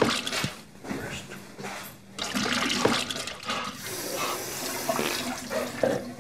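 Water running and rushing in a small bathroom, with a few short knocks.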